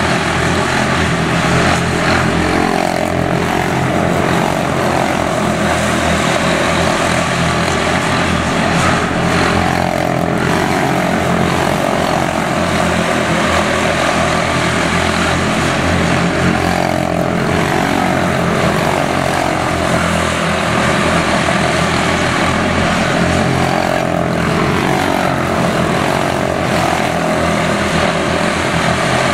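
Several quarter midget race cars with single-cylinder Briggs & Stratton Animal engines running together at race speed, a dense buzz of overlapping engines that rises and falls about every seven seconds as the pack laps the track.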